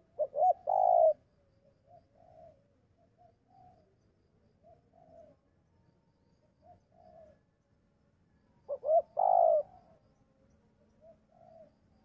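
Spotted doves cooing: a loud three-note coo, two short notes and a longer one, at the start and again about nine seconds in, with fainter short coos repeating in between.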